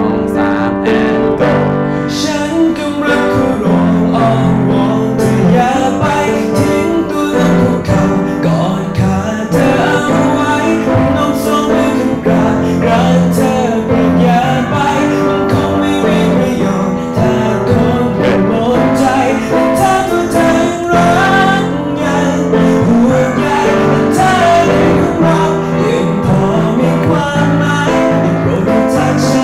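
A young man singing the chorus of a song with its lyrics into a handheld microphone, over an instrumental accompaniment. He is singing the high notes with a lowered larynx, a technique meant to relieve tension in the jaw and throat.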